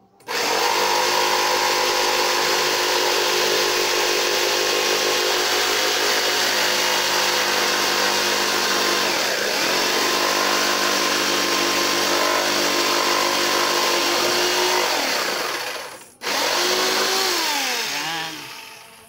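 Electric jigsaw cutting a plywood board, its motor running steadily under load. The motor's pitch sags briefly about halfway through. It stops, starts again for a short burst, then winds down near the end.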